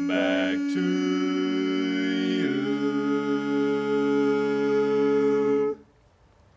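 Male barbershop singers in unaccompanied four-part harmony, holding long sustained chords that change about a second in and again a couple of seconds later, then stopping suddenly near the end.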